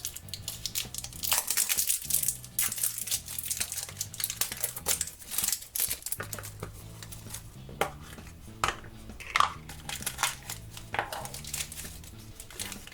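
A Lalaloopsy Tinies plastic blind bag being crinkled and torn open by hand, with irregular crackles throughout. Soft background music plays underneath.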